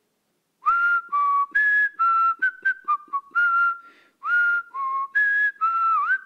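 A tune whistled in short, separate notes that step up and down in pitch. There is a short break about four seconds in, after which the tune goes on.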